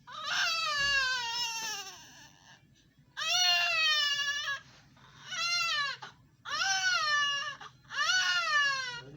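Newborn baby crying in a run of five wails, each falling in pitch, the first the longest at about two seconds and the rest about a second each with short pauses between.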